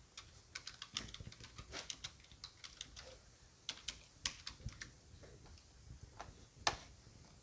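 Quiet typing on a computer keyboard: irregular runs of key clicks, with one louder knock near the end.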